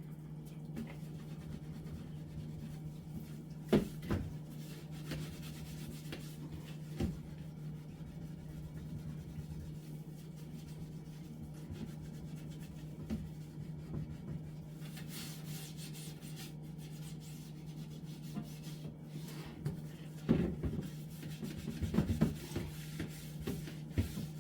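Sponge rubbing and scrubbing the inside of a refrigerator, with a few sharp knocks, the loudest about four seconds in, over a steady low hum.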